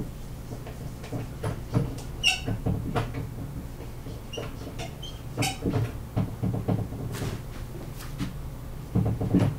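Dry-erase marker squeaking and scratching on a whiteboard in short, irregular strokes as words are written, with a brief high squeal about two seconds in.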